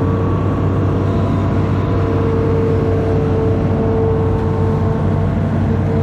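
Amphibious excavator's diesel engine running steadily under work, a low hum with a steady whine over it.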